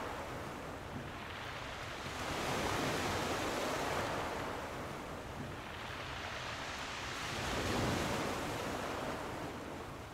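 Ocean waves washing in, a soft hiss that swells and fades every few seconds: a sleep sound of the kind a sunset-simulator alarm clock plays for falling asleep.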